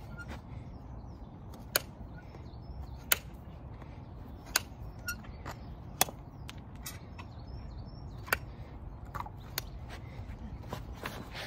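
Hoof knife paring the sole of a horse's hind hoof, each cut ending in a sharp snick: about five loud ones roughly a second and a half apart, then a few smaller ones near the end. The knife is cutting down toward a deep hoof abscess.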